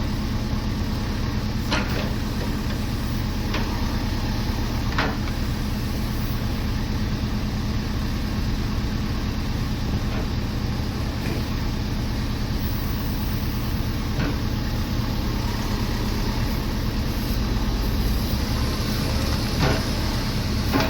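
A heavy work machine's engine running steadily at an even pace, with a few short knocks or clanks now and then.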